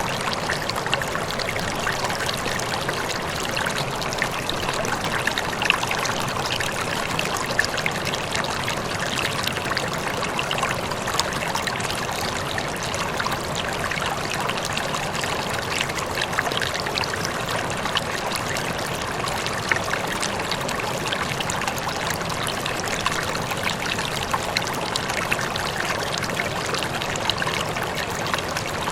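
Running water flowing steadily, a trickling stream with many small splashes and babbling over an even rush.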